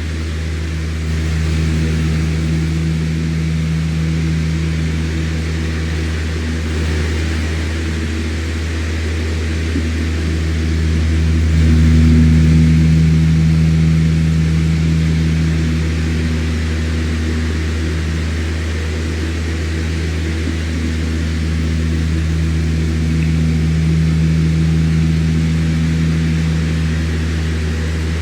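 Electric fan running steadily: a low motor hum with a few steady tones above it, under an even rush of air, swelling slightly twice.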